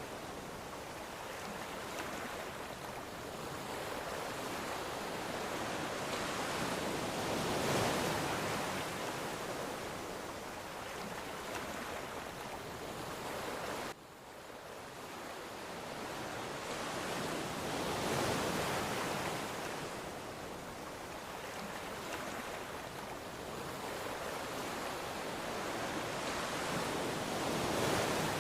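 Ocean waves breaking and washing onto a shore, a steady rush of surf that swells roughly every ten seconds. About halfway through the sound drops abruptly, then builds again.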